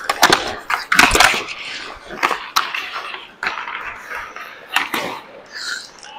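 Ice hockey play on a player's body mic: skate blades scraping and cutting on the ice, with a series of sharp knocks from sticks and puck, clustered in the first second and a half and again around two and a half and five seconds in.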